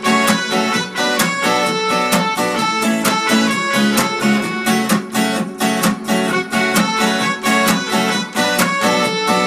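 Instrumental break of a pop song: the band plays on with a steady beat and no singing.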